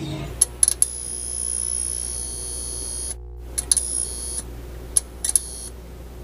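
Electronic glitch sound effects of a video intro animation. Sharp clicks and crackles alternate with stretches of high buzzing hiss, cutting out completely for a moment about three seconds in, over a low steady hum.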